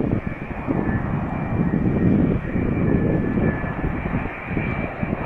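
Jet engines of a Boeing 787-9 Dreamliner, its Rolls-Royce Trent 1000 turbofans, on landing approach overhead. A steady rushing jet noise with a faint high whine.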